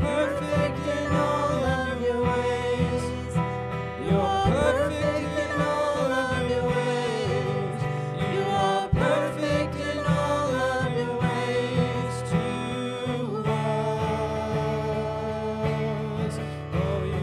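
A worship song played live by a small praise band: strummed acoustic guitar with a man and women singing together.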